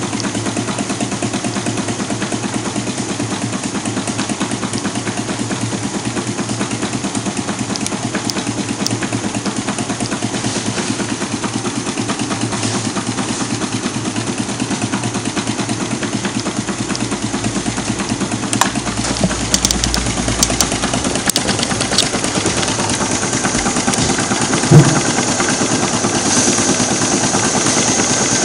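Two-cylinder gamma-configuration Stirling engine running at a constant speed of about 270 rpm, its mechanism clattering in an even rhythm. A few sharp clicks come about two-thirds of the way in, followed by one louder knock.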